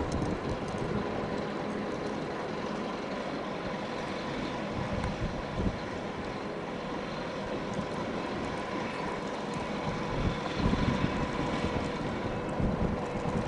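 Large Ro-Ro passenger ferry under way, a steady engine hum with a couple of held tones. Wind buffets the microphone in low gusts, strongest a few seconds before the end.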